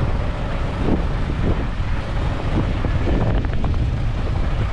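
Wind buffeting the microphone over the steady rumble of vehicle engines from road traffic.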